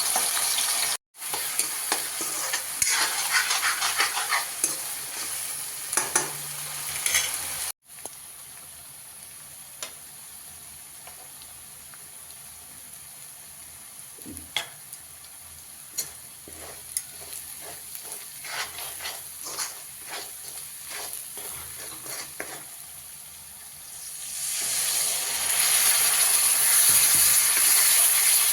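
Okra frying in oil in a pan, sizzling, with a spatula stirring and clicking against the pan; the sizzle grows louder near the end.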